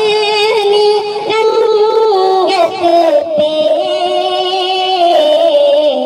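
Urdu naat, a devotional song in praise of the Prophet, sung by a high solo voice in long held notes that waver and glide.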